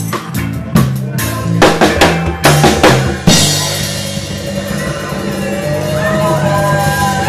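Reggae band playing live, heard close up from the drum kit. A quick run of drum hits over a steady bass line gives way, about three seconds in, to a cymbal crash that keeps ringing under held notes from the band.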